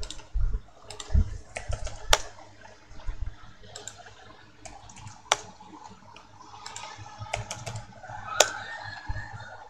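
Computer keyboard and mouse in use: scattered keystrokes and clicks, with three sharper, louder clicks spaced about three seconds apart.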